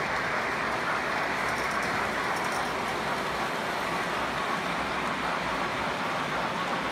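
O-gauge model train cars rolling along the track, a steady even rolling noise of metal wheels on rail.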